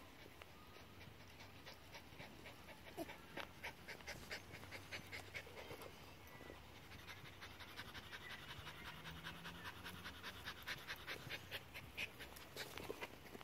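Small dog panting quickly and faintly, about three breaths a second, out of breath from running after a ball.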